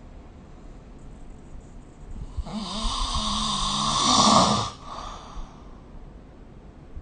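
A sleeping person snoring: after a quiet breath, one snore starts about two and a half seconds in, a low, fluttering snore that swells for about two seconds and is loudest just before it stops, followed by a softer breath out.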